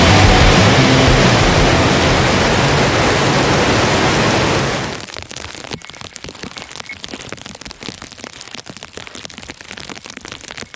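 A loud rushing noise that cuts down sharply about five seconds in. It gives way to steady rain pattering, with many small scattered drop ticks.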